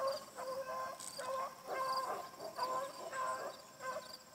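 Beagle baying in a rapid run of yelping cries, about two or three a second: a hound giving voice while chasing something it has found in the cattails.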